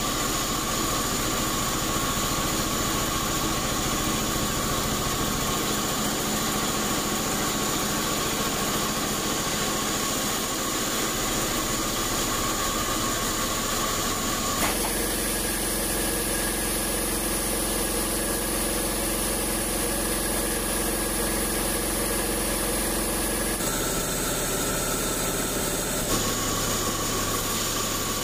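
Large band sawmill running steadily as its blade cuts through a log of old acacia wood. The level stays even, but the tone of the machine changes abruptly about halfway through and twice more near the end.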